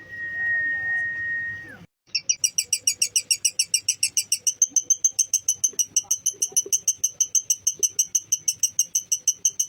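A steady high whistle-like tone held for nearly two seconds and dropping at its end. Then, after a brief cut, a lovebird's long, fast chattering trill (the 'ngekek'): even, sharp high notes at about seven a second, continuing without a break.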